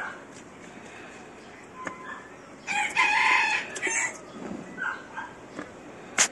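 A rooster crowing once, about three seconds in, for a little over a second. A few faint short calls sound around it, and there is a sharp click at the start and another near the end.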